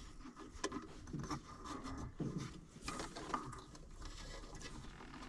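Faint, irregular clicks and knocks of small parts being handled by hand.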